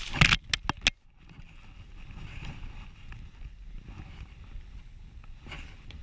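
Skis ploughing through deep powder snow, with a burst of sharp hits and rushes in the first second as snow sprays over the camera. After a sudden brief drop it settles into a steady low rush of skis and air, with a few short swishes near the end.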